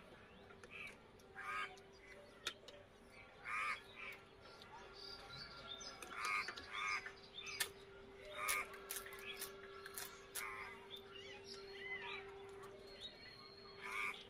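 Birds calling outdoors: short harsh calls repeated at irregular intervals, with a few sharp clicks and a faint steady hum beneath.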